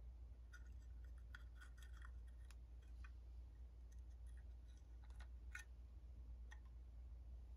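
Faint, scattered clicks and small metal taps as a Ford alternator's brush holder and housing are handled and fitted together, over a low steady hum. The clicks come in a cluster early on and one louder click comes about five and a half seconds in.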